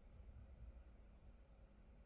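Near silence: room tone with a faint, steady low rumble.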